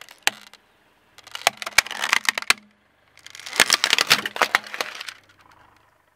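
Plastic housing of a Yoosee pan-tilt Wi-Fi security camera cracking and snapping as a car tyre rolls over and crushes it: a single snap at the start, then two bursts of rapid sharp cracks, one about a second in and a longer one from about three seconds.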